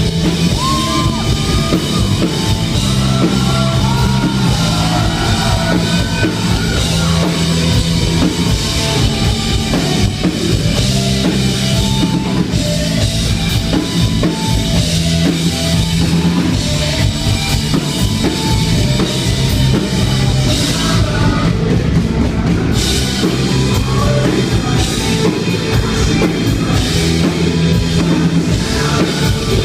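Rock band playing live, with a drum kit prominent and steady loud music throughout.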